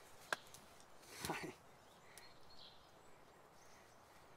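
A quiet forest background with faint bird chirps. A sharp click comes near the start, and a short voice-like sound about a second in.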